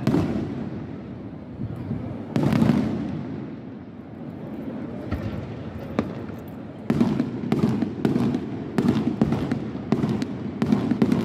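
Aerial fireworks display: shells bursting with loud booms at the start and about two seconds in, a single sharp crack about six seconds in, then a rapid volley of bangs from about seven seconds on.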